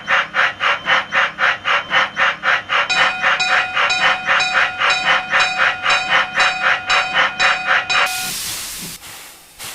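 Cartoon steam locomotive sound effect chuffing in an even rhythm of about three to four beats a second. A steady whistle sounds over the chuffing from about three seconds in, and both stop about eight seconds in with a burst of steam hiss.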